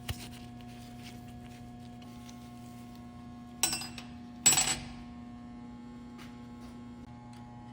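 Two sharp metallic clinks about a second apart, ringing briefly, over a steady low hum.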